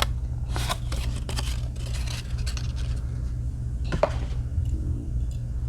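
Handling noise: paper and packaging rustling with light clicks, busiest in the first couple of seconds, with one more click about four seconds in, over a steady low hum.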